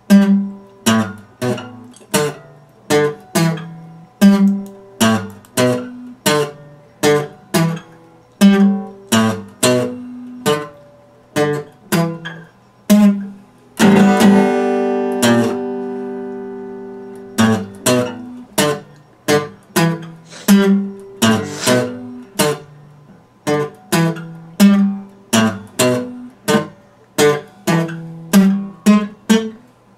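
Epiphone acoustic guitar played solo, a steady run of picked notes and chords about two a second. About 14 seconds in, a full chord is struck and left ringing for about three seconds before the picking resumes.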